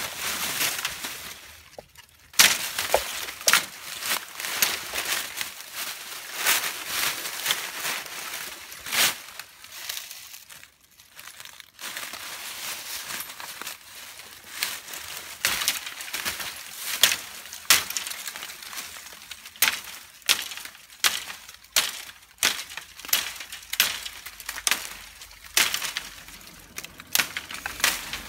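Dry leaf litter and dead bamboo crunching and crackling underfoot, with irregular sharp snaps of dry twigs and stems.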